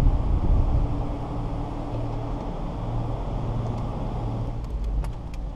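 A steady low mechanical hum, with a few sharp clicks near the end.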